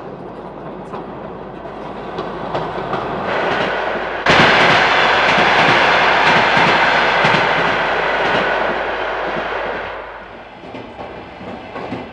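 Train running on rails with a clickety-clack of wheels over the joints. It builds gradually, turns suddenly much louder about four seconds in, stays loud for about six seconds, then drops back.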